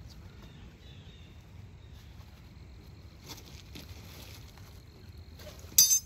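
Quiet rustling and light knocks of a beehive being worked open during an inspection, with a short, loud burst of scraping noise near the end.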